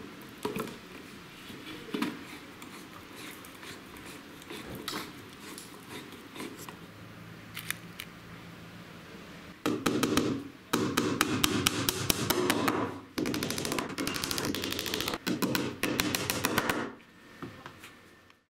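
Small hammer tapping a small nail into plywood, in several fast runs of light sharp taps from about ten seconds in. Before that, scattered light clicks and knocks from fitting a plastic corner clamp.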